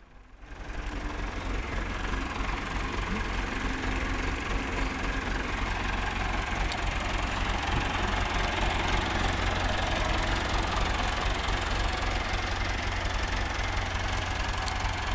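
Lindner 1650 tractor's diesel engine running steadily at idle, coming up over the first second and then holding an even, unchanging level.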